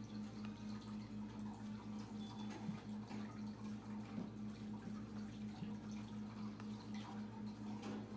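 Faint clicks and light rustles of trading cards being handled and flipped, over a steady low hum that pulses a few times a second.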